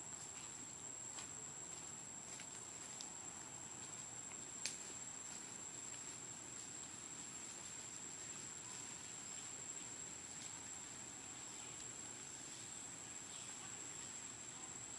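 Steady high-pitched insect drone over a faint hiss, with a few soft ticks and one sharp click about four and a half seconds in.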